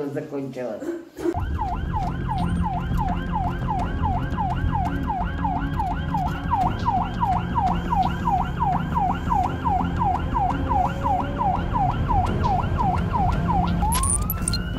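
Ambulance siren in a fast yelp, about three sweeps a second, heard from inside the moving ambulance over engine and road rumble; near the end it changes to a slow rising wail.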